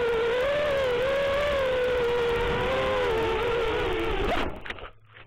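Brushless motors of a 5-inch FPV quadcopter (DYS 2600kv on 4S) whining, the pitch wavering up and down with the throttle. About four and a half seconds in the whine dips and cuts out, with a few brief knocks as the quad comes down in the undergrowth.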